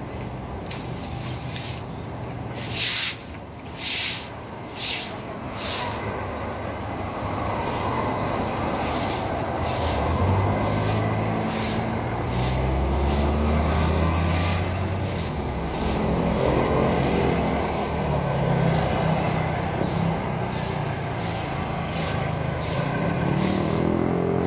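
Stiff stick broom sweeping wet concrete in regular swishing strokes, the loudest ones a few seconds in. A motor vehicle engine runs low underneath from about ten seconds in.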